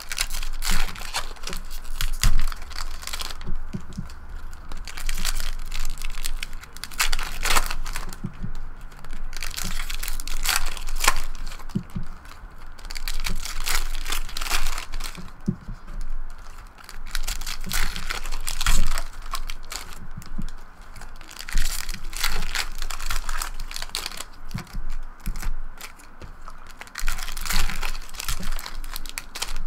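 Foil packs of 2012-13 Upper Deck SP Authentic basketball cards being torn open by hand, one after another: the wrappers crinkle and tear in repeated bursts, with cards slid out and stacked between them.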